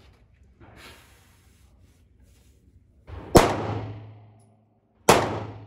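Two 9mm shots from a Glock 19 pistol, about a second and a half apart, the first about three and a half seconds in. Each is a sharp crack followed by a fading echo.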